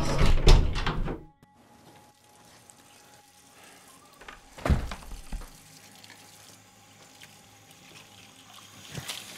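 Film score with guitar ends about a second in, then quiet. About halfway through, a single heavy thump of a door shutting. Near the end, faint tap water runs into a kitchen sink during dishwashing.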